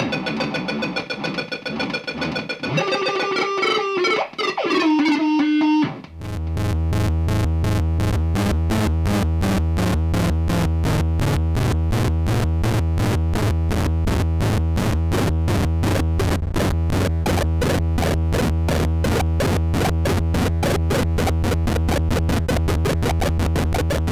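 Fort Processor noise-synth circuit, played by hand on the board: first squealing pitched tones that glide and jump about. About six seconds in it changes to a steady distorted buzzing drone with a fast, even pulse.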